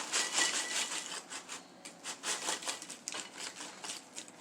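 A freshly microwaved bag of pork rinds crinkling and rustling as it is handled and opened, with many irregular crackles that thin out toward the end.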